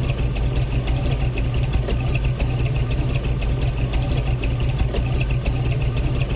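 An engine idling steadily, a deep even rumble with a fast clatter over it.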